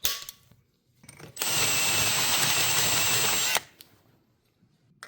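A sharp click, then a power drill running at steady speed for about two seconds, starting and stopping abruptly, with a thin high whine over its noise.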